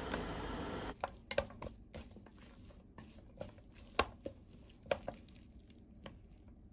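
Chopsticks tossing wet shredded kelp salad in a stainless steel bowl: irregular light clicks and taps of the chopsticks against the metal, starting about a second in.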